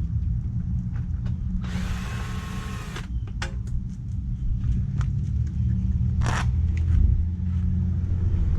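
Hand tools clicking and scraping on metal parts of a 50cc GY6 scooter as it is unbolted, with a longer rasp about two seconds in and a sharp scrape about six seconds in, over a steady low rumble.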